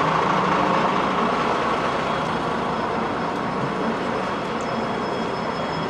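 Heavy vehicle engine and road noise in a city street, a steady rumble that slowly fades.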